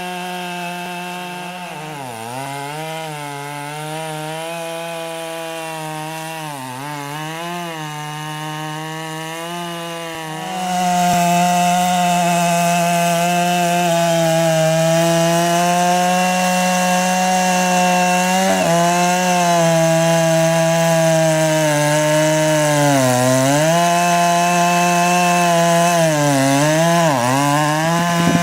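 Chainsaw engine running at high revs, its pitch dipping and recovering several times as the chain bogs down under load in the wood. The sound becomes louder a little over a third of the way in and stays high.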